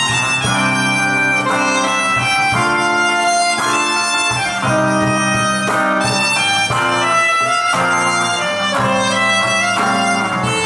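Soprano saxophone playing a melody in sustained notes that change every half second or so, over strummed acoustic guitar chords.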